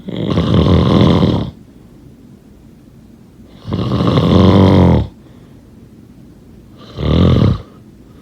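A person snoring: three loud snores about three seconds apart, the last one shorter.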